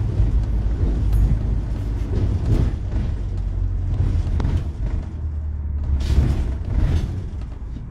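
Double-decker bus on the move, heard from the upper deck: a steady low engine and road rumble with several sharp rattles and knocks from the bus body.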